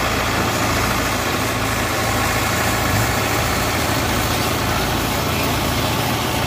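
Kubota DC70 combine harvester's diesel engine running steadily.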